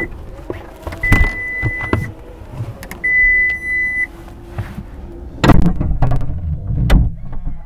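Ford F-150 Lightning's power frunk lid closing: its warning chime gives steady electronic beeps, each about a second long, every two seconds. Then the lid clunks shut, with a second clunk about a second and a half later.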